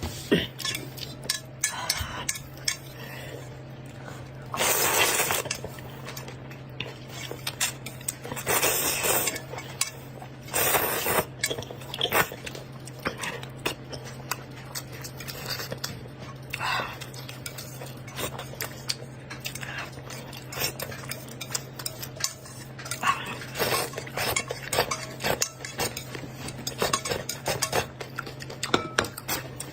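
Utensils clinking and scraping against a bowl as noodles are stirred and mixed with sauce: many short clinks, with a few longer scraping bursts. A faint low hum runs underneath.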